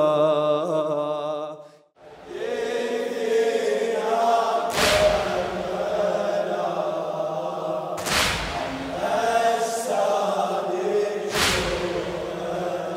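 Male voices chanting a latmiya, an Arabic Shia lament. A held note ends a little under two seconds in, and after a brief break a group of voices takes up the refrain. A heavy slap-like beat falls about every three seconds.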